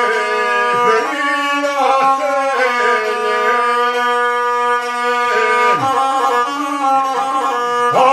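Gusle, the single-string bowed folk fiddle of the guslar, played in long held notes broken by a few short slides.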